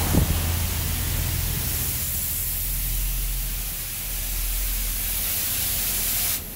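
Automatic car wash spray jets hitting a cargo van's body and windshield, a steady loud hiss heard from inside the van with a low hum underneath. It cuts off suddenly near the end.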